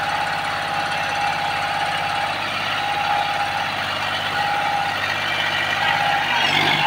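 John Deere 5104 tractor's three-cylinder diesel engine running steadily under load as it strains on a rope to drag an overturned e-rickshaw cart, with a steady high whine above the engine note. The engine note rises briefly near the end.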